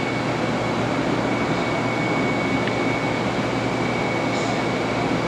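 Steady machinery hum in a machine shop, with a thin, steady high-pitched whine running through it.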